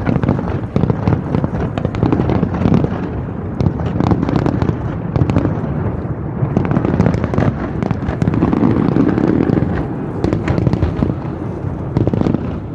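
Fireworks display: a dense, continuous run of bangs and crackling pops.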